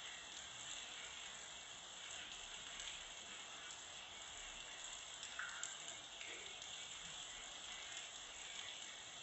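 Rain falling steadily, a soft even hiss with no thunder.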